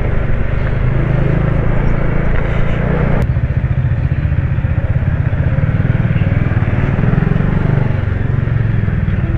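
Motorcycle engine running steadily while riding along, heard close up from the rider's own bike, with a single click about three seconds in.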